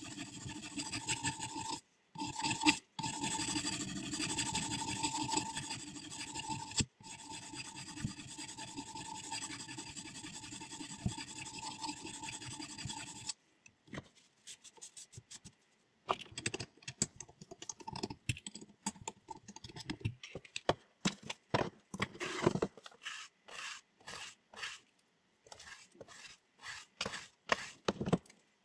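A diamond sharpening stone rubbing and rasping along a scissor blade in steady strokes, broken off abruptly a few times. About thirteen seconds in it gives way to a series of short, sharp snips as the scissors cut.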